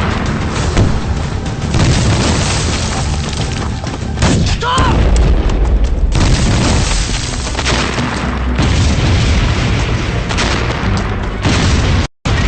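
Battle-scene explosions booming over dramatic music, with a heavy low blast about four seconds in.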